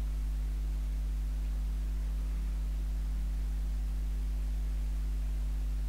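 Steady low electrical hum, a mains-type buzz with several fixed tones, unchanging throughout and with no other sound standing out above it.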